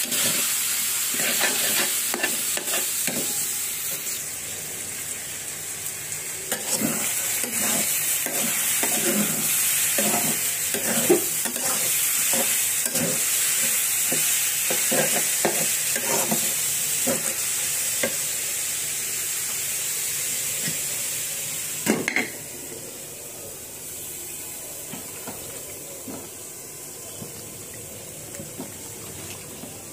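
Shak (red leafy greens) frying and sizzling in an iron karahi over a lowered gas flame, stirred with repeated scraping strokes of a spatula against the pan. About 22 seconds in there is one sharp knock, after which the sizzle is quieter and steadier.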